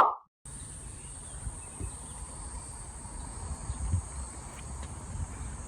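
Insects chirring in a steady high drone, with a low rumble underneath, after a brief blip at the very start.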